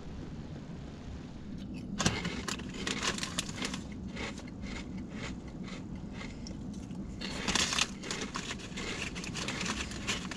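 Close, irregular crunching and crackling of a crunchy snack being chewed inside a car, with a louder spell about seven and a half seconds in. Before it, for the first two seconds, a steady low rumble.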